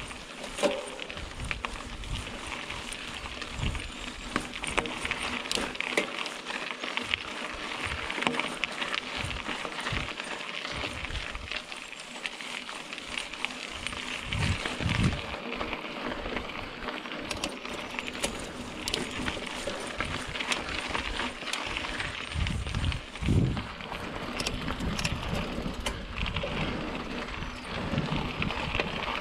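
Mountain bike being ridden along a dirt singletrack: steady tyre noise over the trail with frequent rattles and knocks from the bike, and gusts of wind thumping on the microphone.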